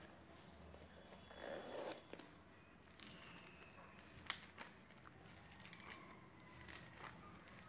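Faint rustling and crinkling of clear plastic sheet-protector pages being turned in a file folder, with a few light clicks, the loudest about four seconds in.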